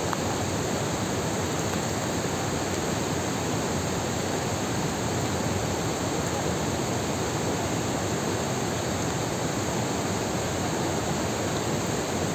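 Large waterfall plunging into a gorge: a steady, unbroken rush of falling water.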